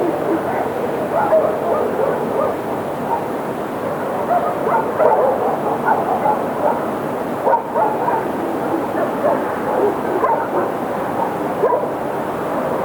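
A pack of wolves yipping and whining, many short overlapping calls running together over a steady background hiss.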